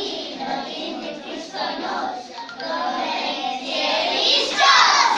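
A group of preschool children singing a children's song together, swelling louder near the end.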